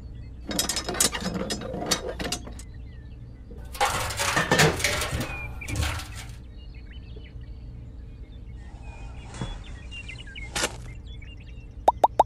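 Handling noise from a small model hand pump being moved and pressed into its brick base: two spells of rustling and scraping in the first half and a shorter one later, with faint bird chirps in the background.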